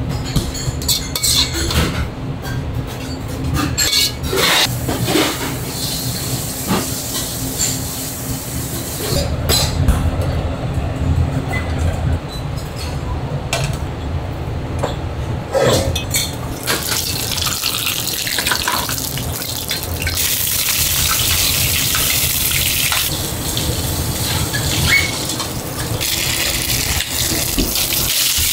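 Restaurant dishwashing station: dishes and utensils clink and knock, then from about halfway a tap runs steadily into a sink.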